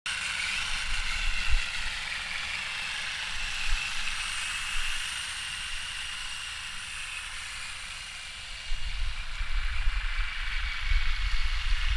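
The electric drive motors and gearbox of a 3D-printed RC screw tank whining steadily as it drives through snow. From about nine seconds in, a low gusty rumble of wind on the microphone joins it.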